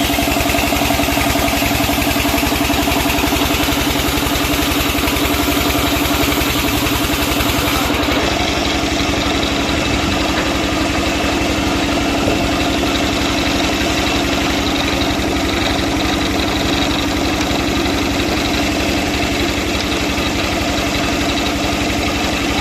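Sawmill machinery running steadily, with a fast, even, engine-like throb. About eight seconds in, the high hiss falls away and a steady mid hum comes forward.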